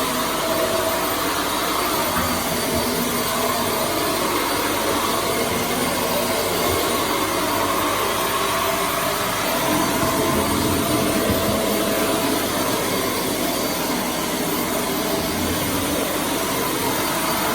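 Dyson Light Ball Multifloor upright vacuum cleaner running steadily, its motor and airflow giving a constant rush with a steady whine.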